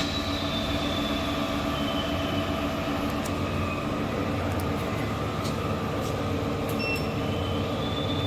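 SuperbMelt SPB-B5 induction melting furnace running: a steady electrical hum with faint high whining tones over it.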